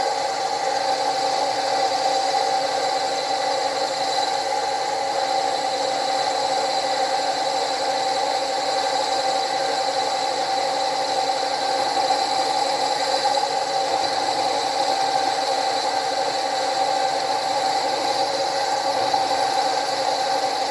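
Milling machine running a right-angle head, taking a boring cut inside the smoke box tube of a model steam locomotive boiler: a steady, even whine with several held tones.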